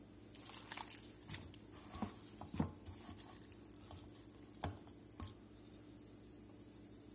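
Raw chicken thighs and drumsticks tossed by hand in a stainless steel bowl to coat them in oil and bouillon powder: soft wet squishes and slaps with a few sharper knocks, the loudest about two and a half seconds in. It stops a couple of seconds before the end.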